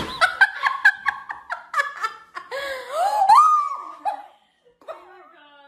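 Laughter in a small room: quick bursts of laughing for the first couple of seconds, then a long wavering high-pitched cry about three seconds in. It dies away to faint sounds after about four seconds.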